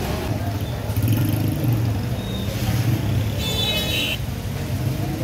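Street traffic with a motor vehicle engine running close by, louder from about a second in; a brief high-pitched tone sounds about three and a half seconds in.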